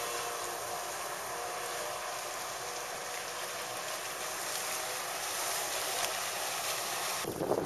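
A 25 HP two-stroke Mercury outboard running steadily at speed on an inflatable tunnel-hull boat, heard from a distance over wind and water noise. Near the end the sound switches abruptly to louder rushing wind.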